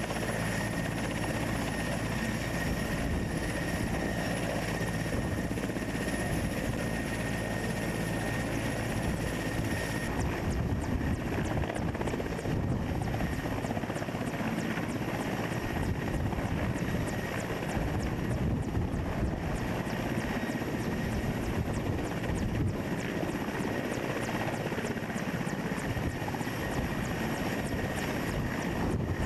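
Indian Air Force Mil Mi-17 helicopter running on the ground, its turboshaft engines giving a steady high whine over the rotor. About ten seconds in the whine drops away and the rapid chop of the rotor blades takes over as the helicopter lifts off and climbs away.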